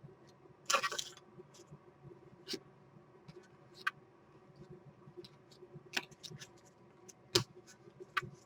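Trading cards being handled and flipped through: a short rustle about a second in, then scattered soft clicks and taps of card edges.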